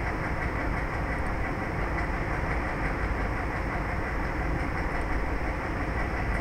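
Steady background noise with no distinct events, and a faint steady hum under it.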